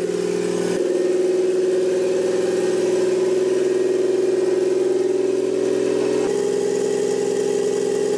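Toyota 1JZ-GTE turbocharged straight-six, swapped into a BMW E46, idling steadily just after being started. Its idle note shifts slightly about a second in and again about six seconds in.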